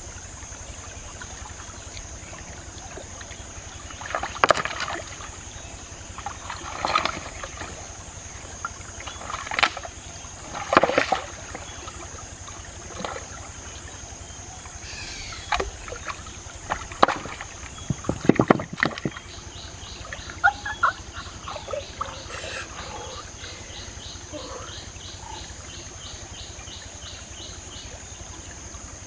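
Hands splashing and sloshing in a shallow rocky stream, with stones and water knocking in irregular bursts, over a steady background hiss.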